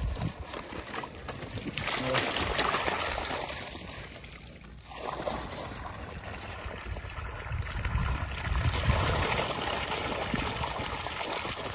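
Water and young carp tipped out of large plastic bags, gushing and splashing into a pond: a first pour about two seconds in and a longer one from about five seconds.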